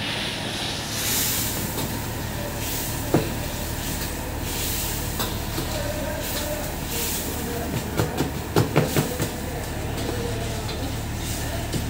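Chinese cleaver striking a wooden cutting board while chopping a green chili: a single knock about three seconds in, then a quick run of about six chops around eight to nine seconds. A steady hiss runs underneath.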